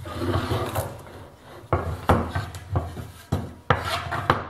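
Wooden boards sliding together on a workbench, then a run of about seven sharp clacks and knocks as plastic spring clamps are snapped onto the glued pair of boards.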